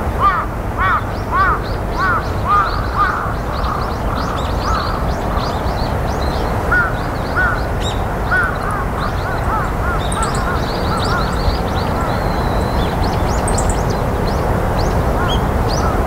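Wild birds calling over a steady low wind rumble. Rapid series of short rising-and-falling calls come roughly twice a second, with thin, high chirps in between.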